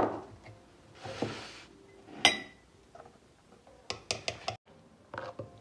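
Metal cooking pot and ladle clattering: a loud knock as the pot is set down, a short hiss, a single ringing clink a little over two seconds in, then a quick run of clinks near the end.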